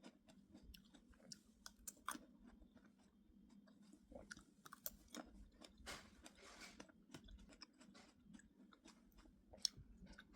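A person chewing fresh fruit close to the microphone: faint, irregular small clicks and crunches.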